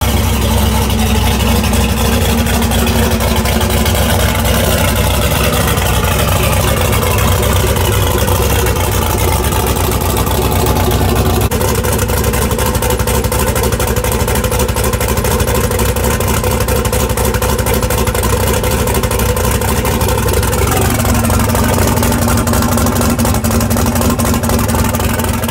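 Turbocharged 5.3 L LS V8 with a Summit stage 2 camshaft idling cold in a third-generation Camaro, a steady, loud idle.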